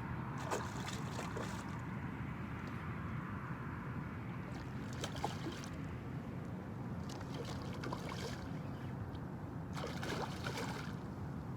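Steady wind rumble on the microphone with short bursts of splashing water every few seconds, as a hooked snook thrashes at the surface during the fight.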